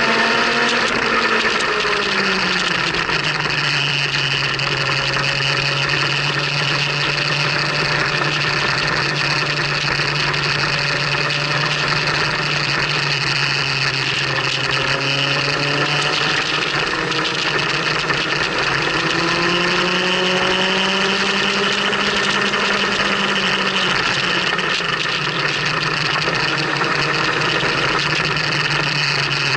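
Motorcycle engine running under way, with a steady rush of wind and road noise. The engine note drops about two seconds in, climbs again a little past halfway and settles back lower about four-fifths through.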